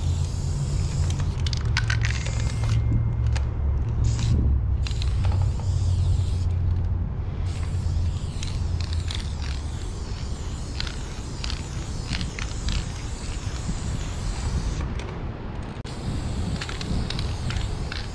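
Aerosol spray-paint can hissing in long bursts as black fill paint is sprayed onto a concrete wall, with short breaks in the spray about 3, 4.5, 7 and 15 seconds in. A low rumble runs underneath, heaviest in the first half.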